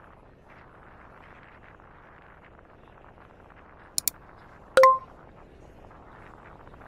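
Two quick sharp ticks about four seconds in, then a loud short clink that rings briefly at a clear pitch, over a faint steady background.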